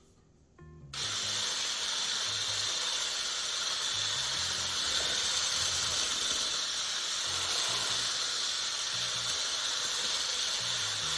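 Electric hand mixer beating buttercream frosting: a loud, steady hiss that starts suddenly about a second in and holds without change. Faint background music underneath.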